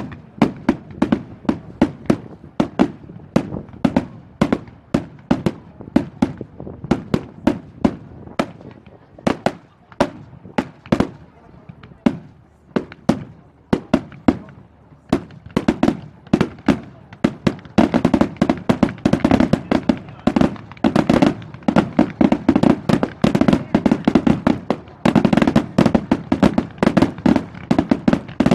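Fireworks display: a rapid run of sharp bangs and crackles, several a second. It thins out for a few seconds midway, then grows denser and louder for the last third.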